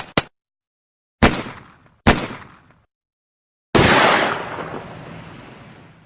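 Cartoon fight sound effects: two sharp hits about a second apart, then a loud blast-like boom near the middle that fades away slowly over about two seconds.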